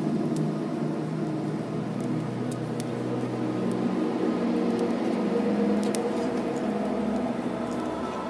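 Ambient background music of long held tones that shift slowly every few seconds, with no beat.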